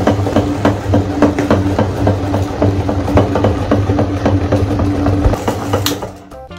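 Electric meat grinder running with a steady motor hum and regular crunching clicks, about three a second, as hard-shelled M&M candies are ground. The grinding stops and fades near the end.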